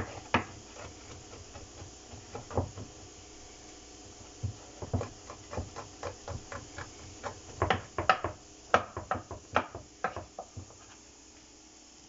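Knife chopping on a cutting board: irregular knocks in short runs, busiest in the second half, stopping near the end.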